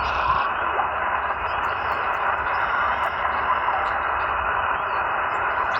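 Steady hiss of band noise from a portable HF transceiver's speaker, its sound cut off sharply above the SSB receive passband. This is the receiver listening to an open frequency after a CQ call, with no station answering.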